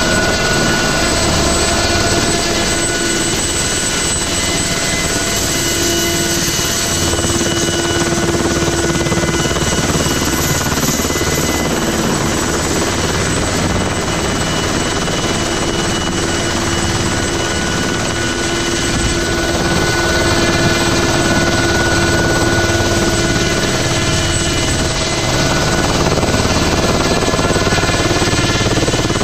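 Ultrasport 496 light helicopter hovering close overhead: steady engine and rotor noise, with a thin whining tone that fades in and out.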